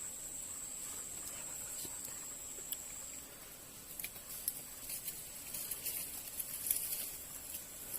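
A steady high-pitched insect trill that stops about three seconds in, followed by scattered light clicks and rustles.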